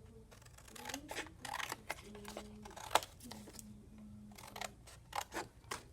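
Scissors cutting through thin cereal-box cardboard, an irregular series of crisp snips with the sharpest about three seconds in.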